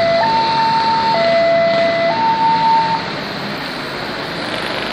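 Railway level-crossing warning alarm sounding a two-tone signal, alternating a low and a higher note about once a second, which cuts off abruptly about three seconds in as the crossing reopens. Road traffic runs underneath.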